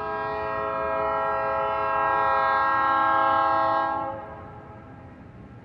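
A locomotive's multi-chime air horn sounds one long, steady blast of several notes together as the train nears a grade crossing. The blast lasts about four seconds and cuts off, leaving the faint low rumble of the approaching train.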